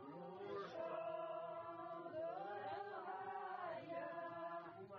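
Group of women singing a Ukrainian folk song without accompaniment, in long held notes that slide from one pitch to the next.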